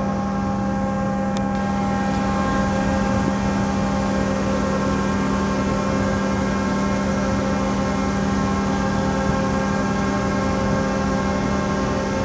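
Machinery of a docked car ferry and its loading ramp droning steadily, with several steady humming tones over a constant rumble. A single sharp click about a second and a half in.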